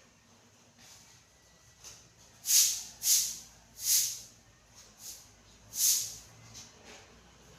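Soft broom sweeping: five short, high swishing strokes at irregular intervals about a second apart, starting a little over two seconds in.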